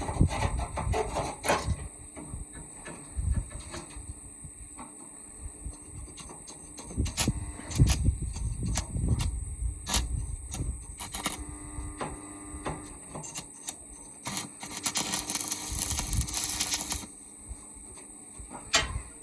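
Metal repair work: scattered knocks and clicks of metal parts being handled, with a few short ringing tones, then a dense scraping hiss lasting a couple of seconds near the end.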